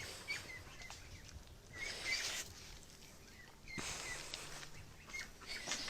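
Small birds chirping in short, repeated high notes, with two stretches of soft hissing noise at about two and four seconds in.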